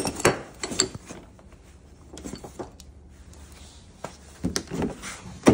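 Scattered short knocks and clicks from a person moving over to the car and handling things: a few in the first second, a quiet stretch, a cluster about four and a half seconds in, and the sharpest, loudest click right at the end.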